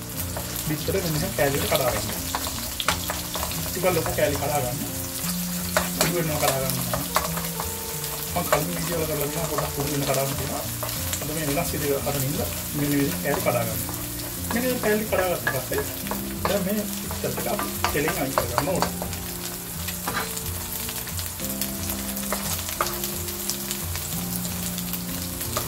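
Beaten eggs sizzling in hot oil in a nonstick wok while a wooden spatula stirs and breaks them into scrambled curds, with frequent scrapes and light taps against the pan.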